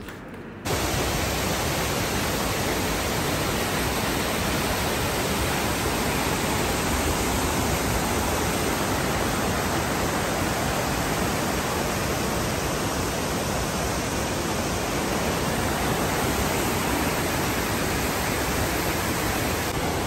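Steady rush of water falling over a wide, many-tiered waterfall into a pool, an even hiss that starts abruptly about a second in and holds level throughout.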